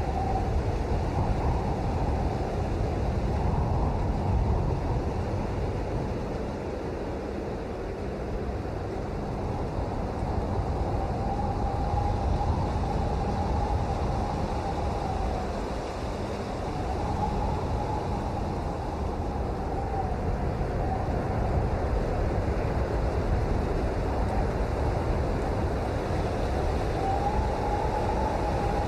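Steady rain, a dense low-pitched hiss that swells and eases slightly. A faint wavering tone drifts in and out a few times.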